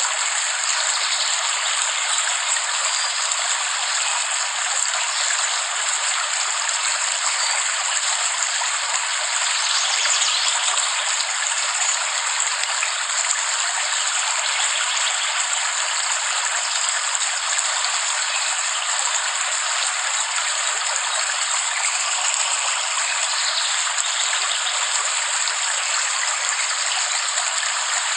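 Steady heavy rain, an even unbroken hiss with no thunder and no low rumble.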